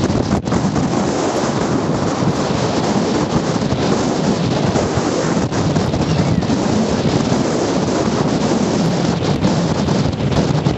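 Lake Superior surf churning under a strong gusting wind, with the wind buffeting the microphone in a steady, loud rush.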